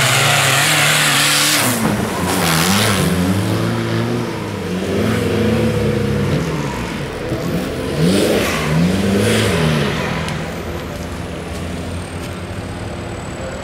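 Off-road 4x4 engines revving hard up and down, again and again, with bursts of hissing spray as spinning tyres throw mud. After about ten seconds the revving gives way to a quieter, steadier engine drone.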